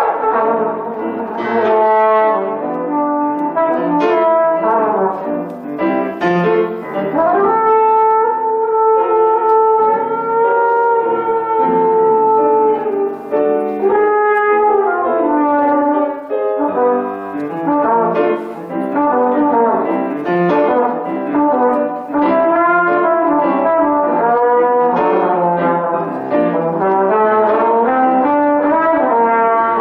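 Live brass instrument playing a slow melody over piano accompaniment, with one note held for several seconds in the first half.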